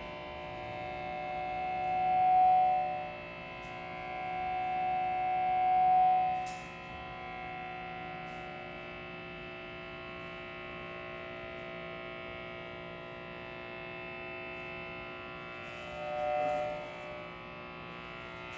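Live electronic drone: a dense, steady hum of many held pitches. A higher tone swells up and fades back several times, twice in the first seven seconds and once more near the end.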